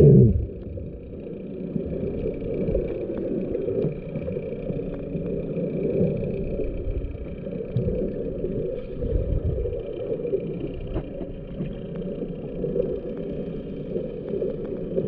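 Muffled underwater sound through a waterproof action-camera housing: a low, uneven rumble and sloshing of water with a faint steady high hum, and a brief loud swoosh falling in pitch right at the start.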